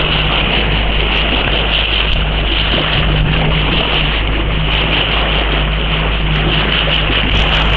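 Motorboat under way: a steady low engine hum under the constant rush of water along the hull and wind buffeting the microphone.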